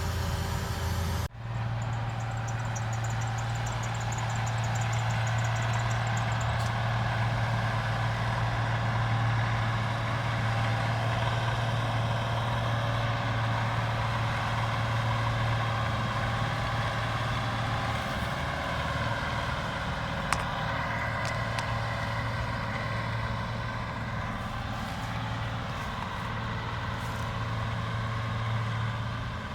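Diesel farm harvesting machinery running steadily with a deep engine hum. The sound breaks off for an instant just over a second in, then carries on.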